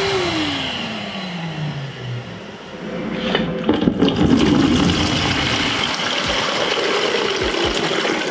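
Numatic George wet-and-dry vacuum's motor winding down after being switched off, its whine falling in pitch over about two seconds. Then, from about three seconds in, water being poured from a plastic container into a plastic bucket.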